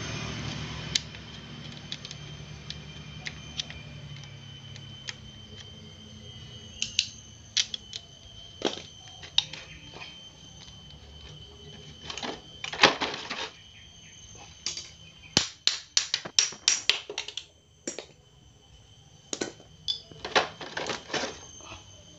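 Metal engine parts clicking and clacking as the transmission gears and shafts in the opened crankcase of a Honda Supra Fit engine are handled. The clicks come in irregular clusters, sparse at first and thicker and louder through the second half.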